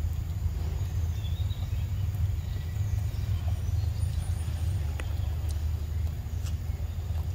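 A steady low rumble, with a few faint sharp clicks in the second half.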